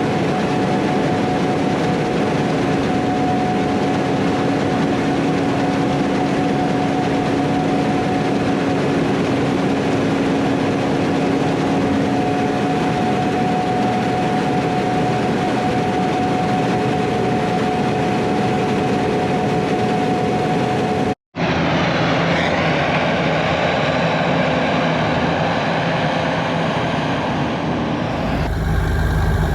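Wheat-harvest machinery running steadily, with a steady whine over the machine noise. About 21 s in the sound cuts off abruptly for a moment and comes back as a different machine sound, and a heavier, deeper engine note comes in near the end.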